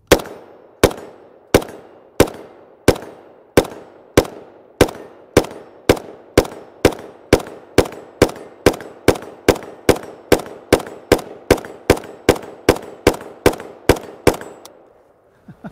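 FN FNC 5.56×45 mm rifle fired as single shots, about thirty in a row, each a sharp crack with a short ringing tail. The shots start about three quarters of a second apart and quicken to about three a second near the end.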